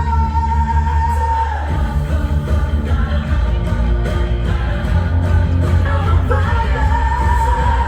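Pop-rock song with a singer holding long notes over heavy bass and a band.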